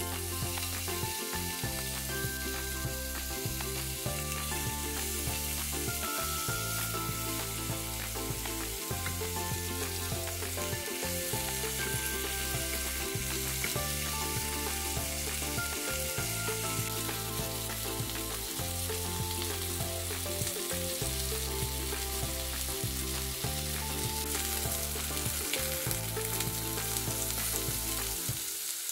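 Marinated chicken thighs sizzling steadily on a hot, dry cast-iron grill pan, with occasional handling by metal tongs. Background music with a repeating bass line plays over it and cuts off at the very end.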